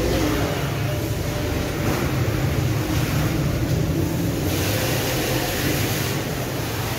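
Steady machine hum with hiss over it; the hiss swells about four and a half seconds in and eases off about a second and a half later.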